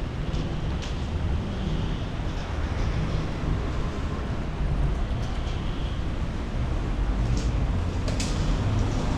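Storm wind buffeting the microphone: a steady low rumble that swells and eases irregularly, with a few brief sharp ticks.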